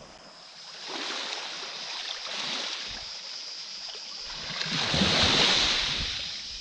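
Small sea waves washing over a flat rocky shore. The wash swells about a second in and rises louder again around five seconds.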